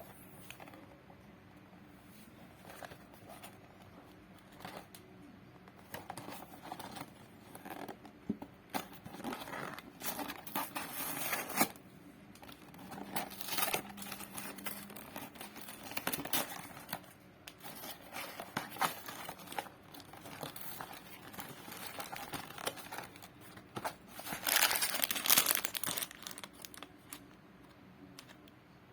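Packaging crinkling and tearing as it is unwrapped by hand, in irregular bursts, loudest near the end.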